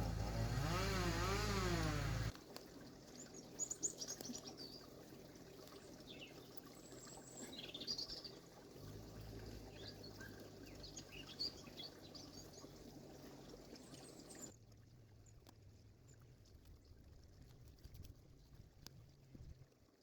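Background music that cuts off about two seconds in, followed by wild birds chirping over outdoor background noise. Past the middle the birdsong stops and only quieter background noise with a low hum and a few faint ticks is left.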